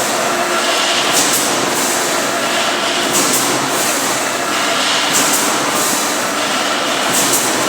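SUMAB automatic wire-mesh welding line running: a steady dense mechanical clatter with repeated short hisses every second or two.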